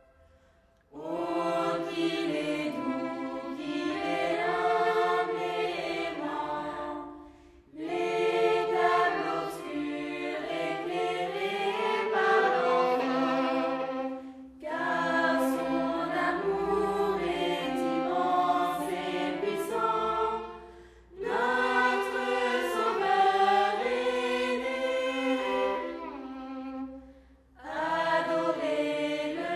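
Mixed youth choir of the Coptic Orthodox church singing a Christmas hymn in French, with a violin accompanying. The choir comes in about a second in and sings in phrases of around six seconds, each broken by a short pause.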